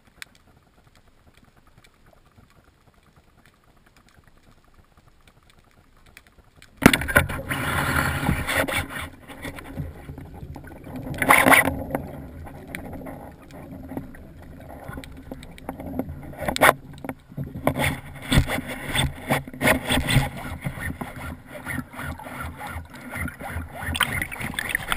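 Speargun fired underwater about seven seconds in: a sudden sharp crack breaking a near-quiet stretch. It is followed by loud, irregular rushing and knocking noise, with several sharp clicks, as the gun and its line are handled and pulled underwater.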